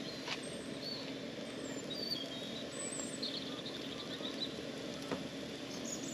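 A few short, high bird chirps over a steady low background rumble, with two sharp clicks, one just after the start and one about five seconds in.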